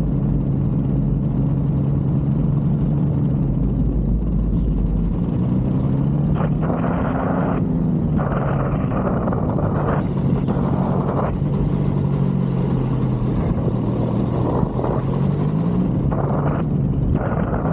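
Paramotor engine and propeller droning steadily, its pitch rising and falling several times as the throttle is worked on the low approach to landing.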